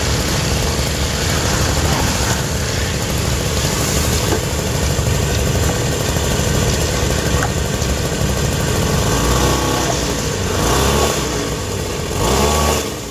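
Heavy vehicle engine running with a dense rumble, revving up and down twice in the second half.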